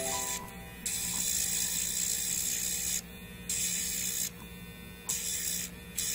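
Electric pet nail grinder running with a steady hum, its spinning head giving a gritty grinding hiss in on-off stretches of about half a second to two seconds as it is pressed to a dog's claws.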